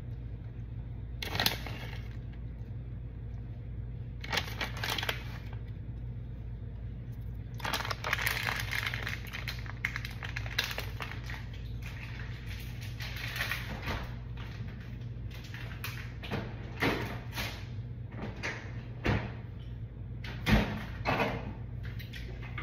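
Steady low hum of a kitchen, broken by scattered rustles, clicks and knocks of someone moving about and handling things, with a sharper knock near the end.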